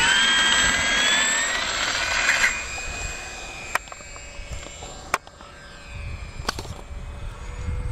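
Gee Bee R3 RC model plane's motor and propeller winding up to a steady high whine at full throttle for takeoff, then falling away much quieter after about two and a half seconds as the plane leaves. A few sharp clicks come in the quieter part.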